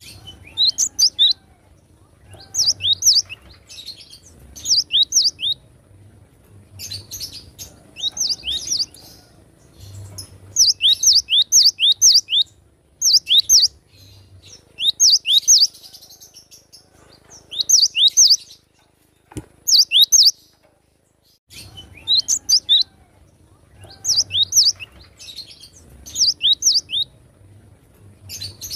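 Cinereous tit (gelatik batu) singing in a lively, full-song state: phrases of two to four quick, sharp, falling whistled notes, repeated every second or two.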